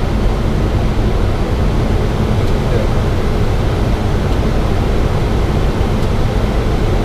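Steady cockpit noise of a Boeing 737 on final approach: a constant rush of airflow over the flight deck with the engines running underneath.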